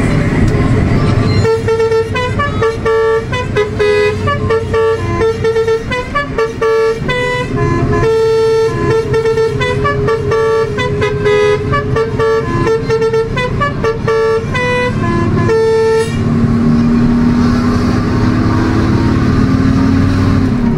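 Basuri musical bus horn playing a quick tune of short pitched notes for about fourteen seconds, over the steady running of the bus engine. After the tune stops, only the engine and road noise are left, the engine note rising slowly near the end.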